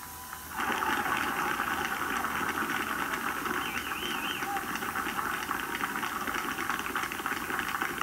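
The last held note of the national anthem dies away. About half a second in, an outdoor crowd breaks into applause, which goes on steadily as the performance ends.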